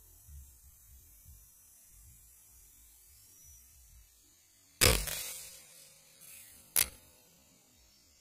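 A single air rifle shot: a sudden sharp crack a little over halfway through that dies away over about half a second, followed about two seconds later by one short sharp click.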